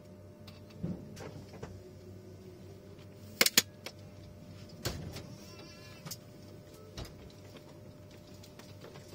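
Steady hum inside a TGV Réseau passenger carriage, broken by a few sharp clicks and knocks. The loudest is a quick double click about three and a half seconds in.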